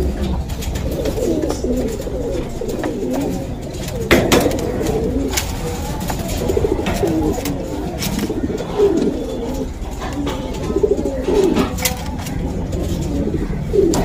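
Pigeons cooing over and over, low wavering coos from a puffed-up bird displaying to another. A few sharp clicks come through, the loudest about four seconds in.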